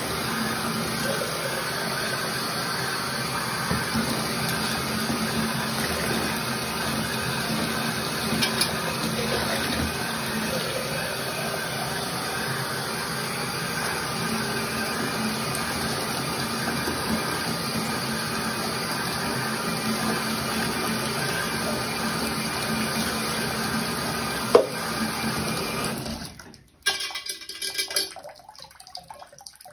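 Bathtub faucet running steadily as soap is rinsed off trombone parts, with one sharp knock a little before the end. The water shuts off abruptly near the end, leaving a few small knocks and drips.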